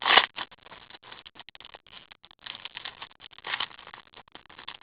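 Trading-card pack wrapper crinkling and cards rustling as the pack is opened and the cards are slid out by hand: a run of small irregular crackles with a couple of louder rustles.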